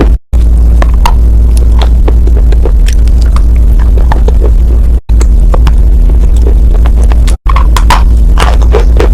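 Close-miked crunching and chewing of dry edible chalk, a run of sharp irregular crunches over a loud steady low hum. The sound cuts out abruptly for a split second three times.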